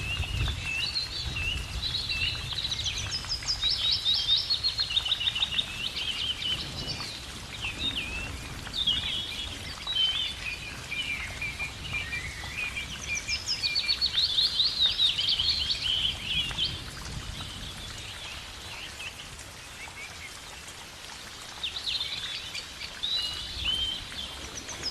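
Songbirds singing in bouts of quick trills and rapidly repeated notes, several phrases overlapping, over a faint low background rumble.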